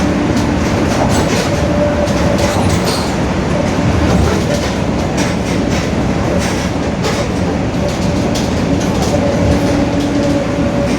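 Mercedes-Benz OF-1721 bus under way, its rear differential droning very loudly: a steady low tone over road and drivetrain noise, fading in the middle and coming back strongly near the end. Light clicks and rattles run throughout.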